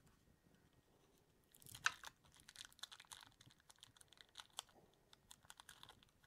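Faint crinkling and a scatter of small clicks as amber tape is pressed and smoothed onto a 3D printer's heated bed to work out air bubbles. It starts about a second and a half in, with the loudest crinkle about two seconds in.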